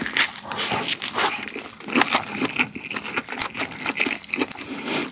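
Close-miked biting and chewing of a tomato pasta hot dog with a sausage inside: a dense, irregular run of short crunching clicks.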